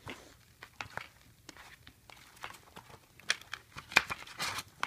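Plastic DVD case and disc being handled: scattered clicks and rustles, busiest in the last two seconds.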